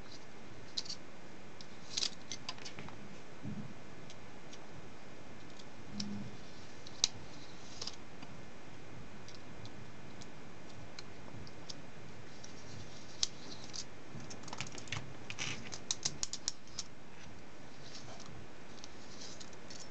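Scattered faint clicks and light scrapes of the points of a pair of steel dividers touching a camera lens's metal retaining ring and barrel as the lens is handled, over a steady low hiss. The clicks bunch into a quick flurry about two-thirds of the way through.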